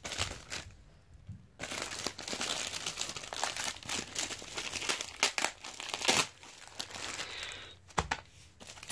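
Plastic bags and packaging crinkling and rustling as they are handled, with quieter pauses, and a single knock near the end.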